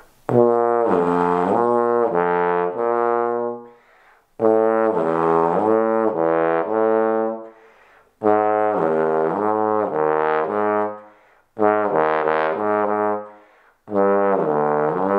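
Bass trombone playing a lip-bending exercise in five phrases of sustained low notes, each note dipping in pitch and coming back. The player bends a note down with the lips, then plays the lower note with the F-attachment valve, to compare and develop the tone on the valve.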